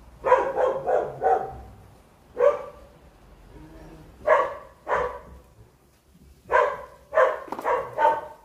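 A dog barking off and on: a quick run of four barks, a single bark, a pair, then another run of four near the end.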